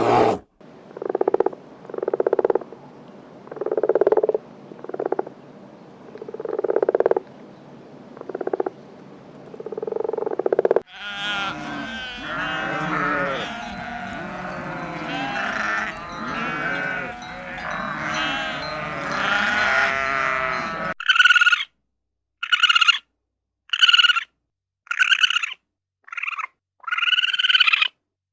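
Animal calls in three spliced runs: a series of separate low calls, then a dense chorus of many overlapping calls, then a string of short, higher-pitched calls about once a second.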